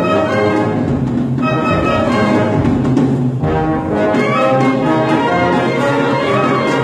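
Symphonic wind band playing a sustained, full passage, with the brass to the fore.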